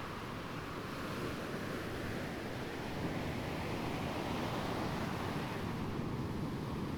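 Ocean waves breaking and washing on the shore: a steady rush of surf that swells a little in the middle.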